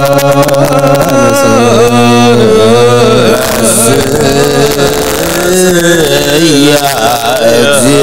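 Ethiopian Orthodox priests chanting a liturgical hymn, drawn-out notes wavering slowly up and down over a steady low tone.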